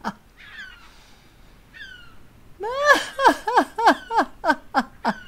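A woman laughing loudly in quick rhythmic "ha-ha-ha" bursts, about three a second and each falling in pitch: a gull-like laugh imitating a black-headed gull. It starts about two and a half seconds in, after a pause with only faint high falling cries.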